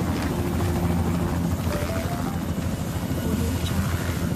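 A steady low mechanical drone, with a few short high tones about two seconds in.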